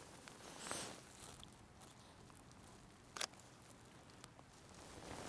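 Faint, quiet footsteps and rustling on a slushy trail, with a soft swish a little under a second in, scattered light ticks, and one sharp click a little after three seconds in.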